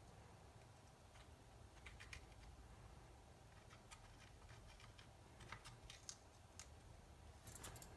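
Near silence with faint, scattered small clicks and taps, a few close together near the end: small handling noises of parts and tools being worked by hand.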